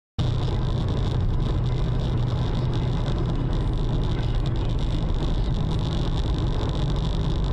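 Steady road and engine noise of a car driving at highway speed, heard from inside the cabin through a dashcam, with a strong low rumble and a faint steady high whine. It cuts in abruptly a moment after the start.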